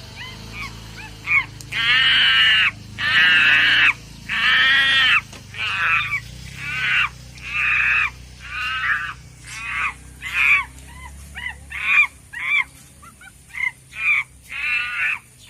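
Geese honking in a long series of harsh calls, the longest a few seconds in, then shorter, quicker honks toward the end.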